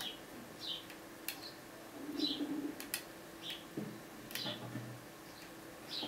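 Hook pick working the pins inside a TESA TE5 pin-tumbler cylinder under tension: scattered sharp metallic clicks, with repeated short high chirps throughout.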